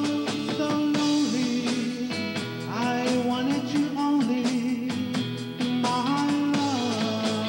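A band playing live: accordion, electric guitars and a drum kit, with a man singing at the microphone.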